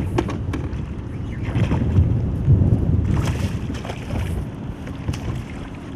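A hooked sea bass thrashing at the surface beside the boat, splashing in several short bursts, over a steady rumble of wind on the microphone.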